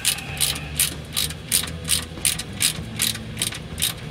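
Socket ratchet wrench clicking as it runs down the nut on an exhaust pipe band clamp. There are short bursts of pawl clicks at an even pace of about three a second, one with each swing of the handle.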